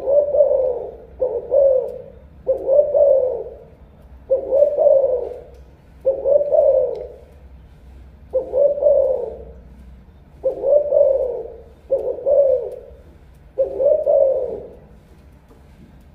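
Spotted dove cooing its song: a series of about nine low, repeated coos, some in close pairs, stopping about a second before the end.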